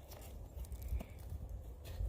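A couple of sharp hollow knocks, the clearest about a second in: a wooden baton striking the spine of a folding pocket knife to drive it through a log and split it. A steady low rumble runs underneath.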